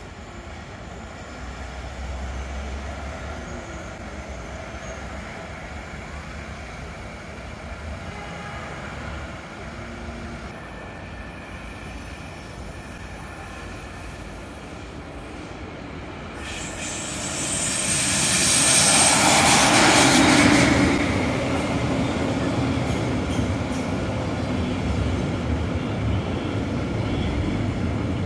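Red DB Regio double-deck regional train approaching and rolling past on the elevated tracks. Its noise swells to a loud peak about two-thirds of the way through, with a high hissing screech, then settles into the steady rumble of the carriages going by.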